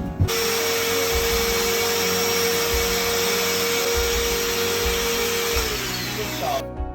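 An electric motor starts about a quarter second in and runs steadily: a loud rushing hiss with a steady whine. Near the end the whine falls as the motor winds down, and then the sound cuts off.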